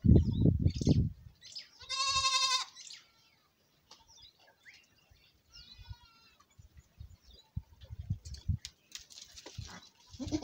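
Goats bleating: one loud, wavering bleat about two seconds in and a fainter one at about six seconds, with another starting at the very end. A burst of low rumbling fills the first second.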